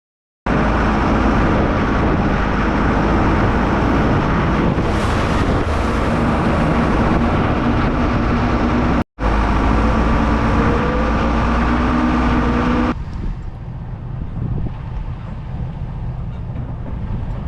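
A vehicle's engine running with road noise while driving, and its pitch rises about ten seconds in. The sound cuts out sharply for an instant just after nine seconds. From about thirteen seconds on it is quieter and mostly rushing wind.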